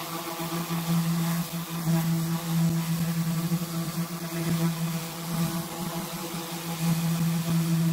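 Electric random orbital sander sanding a plexiglass sheet, its motor giving a steady hum that swells and dips in strength as the pad is pushed across the sheet.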